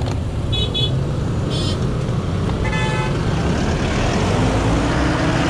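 Road traffic running close alongside, with three short, high horn toots in the first half. Toward the end the rushing noise swells as a vehicle passes close by.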